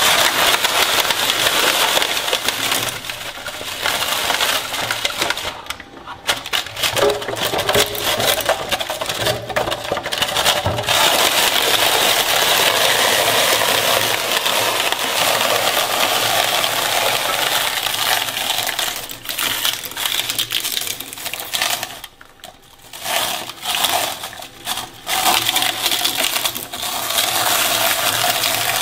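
Twin-shaft shredder's steel cutter blades grinding and tearing apart a rubbery spiked toy ball: a dense, continuous crackling clatter that drops away briefly about six seconds in and again around twenty-two seconds.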